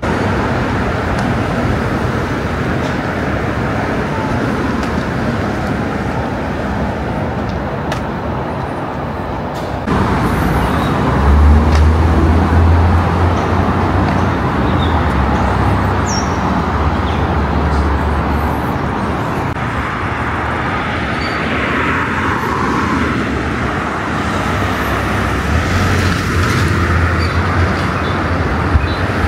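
Road traffic going past: a steady wash of tyre and engine noise, with a deeper engine rumble from heavier vehicles for several seconds about a third of the way in and again near the end.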